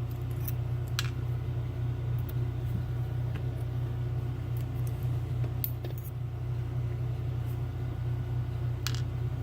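A steady low hum throughout, with a few faint, sharp clicks of small metal lock pins and tools being handled.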